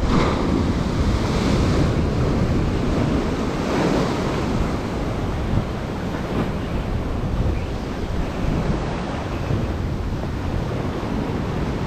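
Surf washing onto the shore, with swells near the start and about four seconds in, over steady wind buffeting the microphone.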